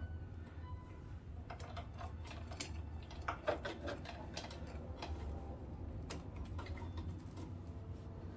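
Irregular light clicks and metallic clinks of hand work on a mini bike's rear wheel and chain, with a louder cluster of clinks about halfway through, over a steady low hum.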